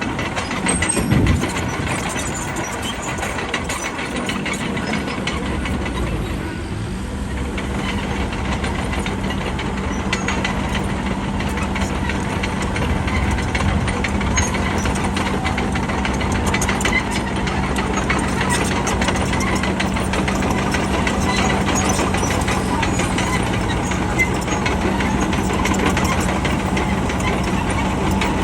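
Bulldozer's diesel engine running with a steady drone, settling to a constant pitch about seven seconds in, with a continuous rattle of clicks over it.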